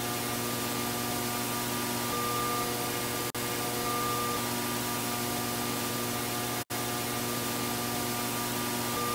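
Analog TV static hiss with a steady low hum and faint tones underneath. It dips briefly about three seconds in and cuts out for an instant near the middle.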